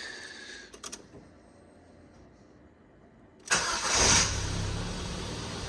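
Ford Fiesta petrol-or-diesel-unspecified engine's first start after a new timing belt: a faint whine and a couple of clicks, then about three and a half seconds in the starter cranks briefly, the engine catches and settles into a steady idle.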